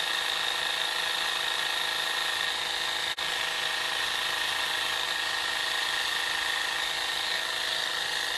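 Conair Total Body Epilator's small electric motor running steadily with a high whine as its spinning tweezer head is worked over the skin of the upper lip. It breaks off for an instant about three seconds in.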